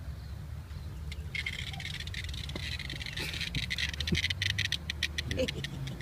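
Cicada buzzing, a dense run of rapid clicking pulses that starts about a second and a half in and stops just before the end.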